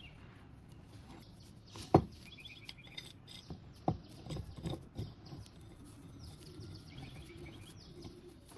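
A few knocks and taps of small objects being handled on a work surface, the loudest a single sharp knock about two seconds in, with faint birds chirping in the background.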